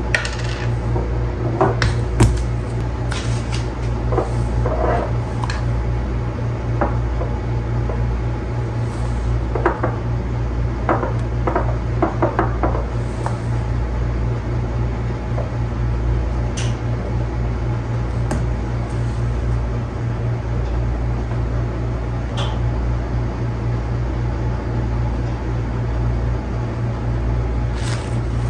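Glass spice jars and their lids clicking and knocking on a countertop as a jar is opened and ground spice is poured through a funnel into another jar. The clicks come in scattered clusters, thickest in the first few seconds and again about ten to thirteen seconds in, over a steady low hum.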